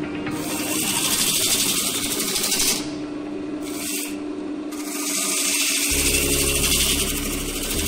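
Wood lathe turning an olive-root hollow form while a gouge cuts the spinning wood, giving a steady hiss of shavings coming off. The cutting hiss drops out twice, briefly, about three and four and a half seconds in, as the tool comes off the wood.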